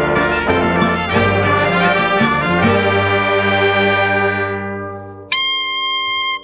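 A band with prominent brass, trumpets and trombones, playing live: short rhythmic chords, then a long held chord that fades away, then a bright held note that cuts off sharply.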